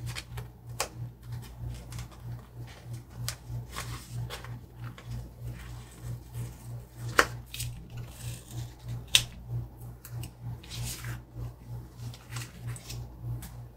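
Paper sticker sheets being handled and shuffled: scattered ticks, taps and brief rustles, over a low, evenly pulsing hum.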